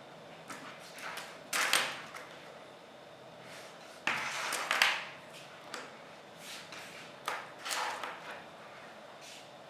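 Factory production machinery working in short, irregular bursts of hiss and clatter, one every second or two, the longest lasting about a second.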